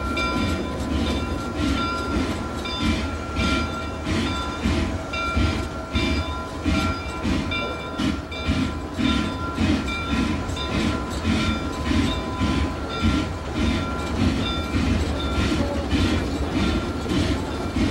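Steam locomotive working, its exhaust chuffing in an even rhythm of about one and a half beats a second over a low rumble.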